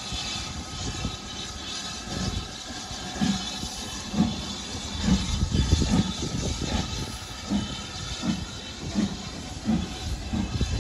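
Steam locomotive 80154, a BR Standard Class 4 2-6-4 tank engine, pulling away with its train: the exhaust chuffs in beats about once a second that gradually quicken, over a steady hiss of steam.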